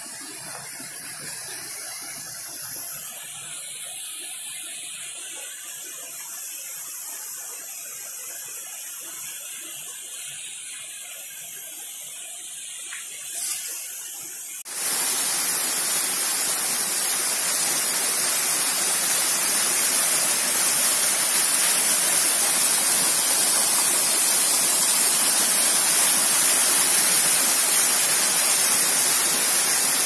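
Mountain water flowing: a quieter hiss of a stream running over stones, then, about halfway through, a sudden jump to the loud, steady rush of a waterfall cascading down a rock face close by.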